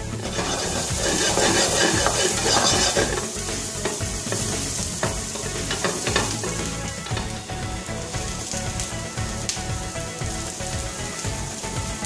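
Food sizzling steadily in a frying pan, with the soft scraping rustle of couscous being stirred and rubbed in a glass bowl. The sizzle is a little brighter for the first few seconds.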